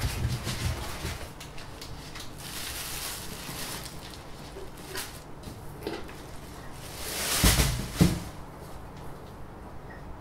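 Foam packing and a plastic bag being handled with scattered rustles and knocks. About three-quarters of the way through comes a louder scrape and a knock as a resin 3D printer is pulled from its foam and set down.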